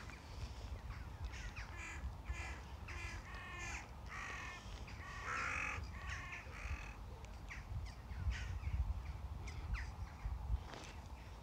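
A flock of crows cawing, a run of repeated harsh caws in the first half, then fewer scattered calls, over a steady low rumble.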